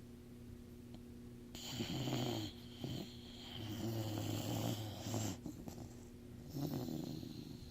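A sleeping pet snoring: three rough snores a couple of seconds apart, the middle one the longest.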